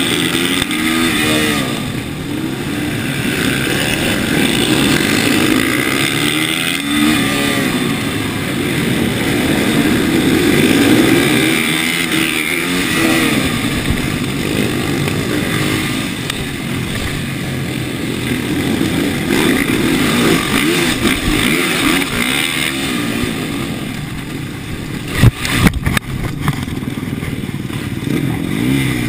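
TM supermoto motorcycle engine racing, revving up and falling away again and again through the gears, heard from the rider's helmet camera. About 25 seconds in there are two sharp, loud knocks.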